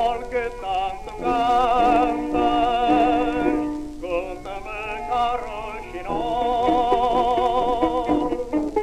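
Music from an old fado recording: two long phrases of held melodic notes with a wide vibrato, a lower note held beneath the first, before the singing begins.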